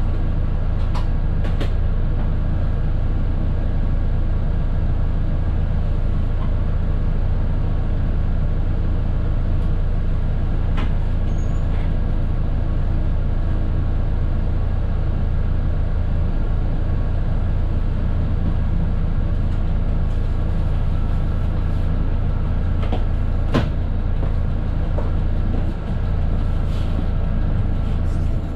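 Mercedes-Benz OF 917 bus's four-cylinder diesel engine idling steadily, heard from the driver's cab, with a deep, even drone and a few light clicks.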